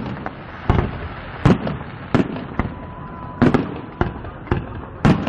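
Fireworks display: a string of sharp aerial shell bangs, roughly one or two a second, over a continuous crackling rumble, with a faint thin whistle near the middle.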